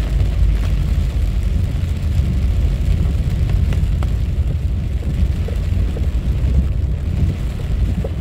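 Steady low rumble of a car driving on a wet road, heard inside the cabin, with the hiss of heavy rain on the car.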